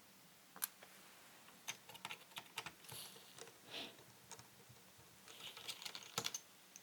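Small screwdriver working on the tiny screws of a Panasonic LX7 camera's lens-assembly plate: scattered faint clicks and ticks with a few short scratchy scrapes.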